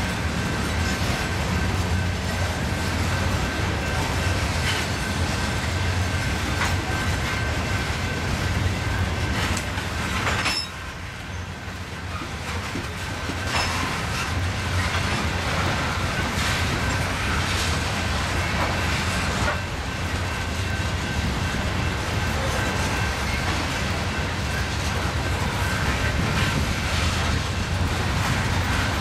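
Freight train cars rolling past: a steady rumble of wheels on rail with clicks over the rail joints and a faint thin wheel squeal. The noise drops off briefly about ten seconds in, then returns.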